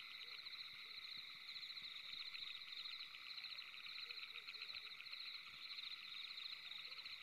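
Faint, steady chorus of calling animals in a night-time ambience: fast, evenly pulsing chirps that run on without a break.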